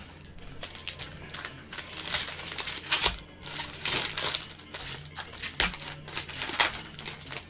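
Plastic trading-card pack wrappers crinkling and rustling as packs are opened and cards handled, with irregular sharp clicks and taps.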